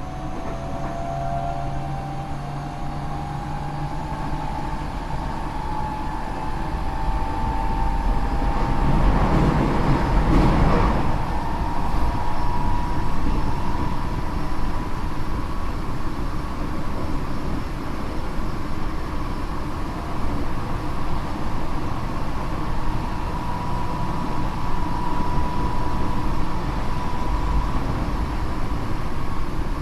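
Tokyo Metro 8000 series car with a Mitsubishi IGBT VVVF inverter, heard from inside while running: the traction motor whine rises in pitch as the train picks up speed, then holds steady over the rumble of wheels on rail. This car is known for an abnormal noise that makes the motor sound muddy at most speeds. A loud rush of noise swells and fades about nine to eleven seconds in.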